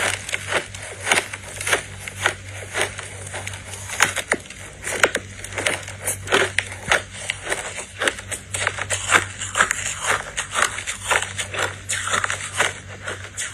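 Close-miked biting and chewing of chunks of purple frozen crushed ice: a dense run of sharp, irregular crunches and crackles as the ice breaks between the teeth.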